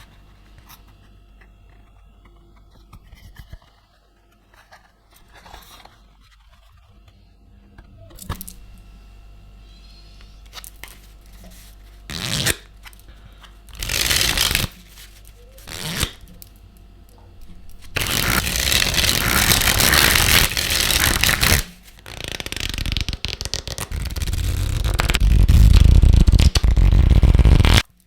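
A boxed deck of playing cards being unwrapped and handled: scraping, tearing and crinkling of the packaging and card stock. Short scrapes at first give way to a few loud bursts, then long loud rustling stretches in the second half that cut off suddenly at the end.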